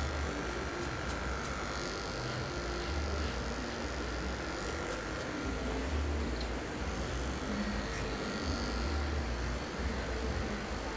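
Corded electric hair clippers running as they are passed over a closely shaved scalp, with a steady low rumble underneath.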